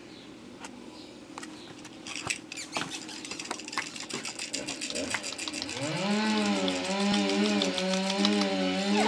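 A plush toy shaken in front of a puppy gives a fast, even rattling that grows louder. About six seconds in, a steady low-pitched hum joins it and holds to the end.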